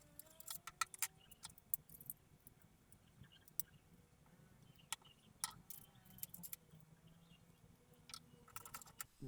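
Scattered light clicks and small rattles of a hard drive and its fittings being handled and fixed into a PC case's drive tray, with a cluster of quicker clicks near the end.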